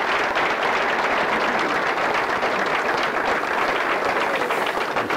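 Audience applauding: many hands clapping together at a steady level, a dense patter of claps.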